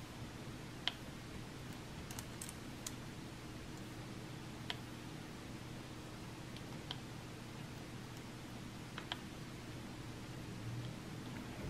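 Faint, scattered clicks of round resin diamond-painting drills being set onto the canvas with a drill pen, one every second or two.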